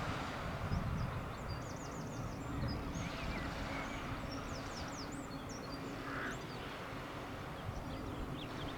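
Birds chirping in quick high-pitched bursts, twice, over a steady low rumble.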